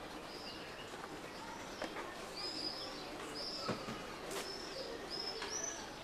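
Small birds chirping, short high calls that rise and fall, one or two a second. A few faint clicks sound among them, and a sharper knock comes a little past halfway.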